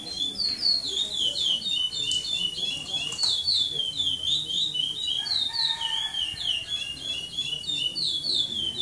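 Curió (chestnut-bellied seed finch) singing a long, unbroken run of fast, slurred whistled notes in the classic praia tournament song style.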